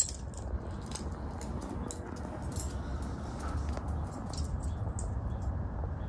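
A small dog trotting on concrete: irregular light clicks and jingles from its claws and collar tags, with a sharp click at the very start. A low steady rumble runs underneath.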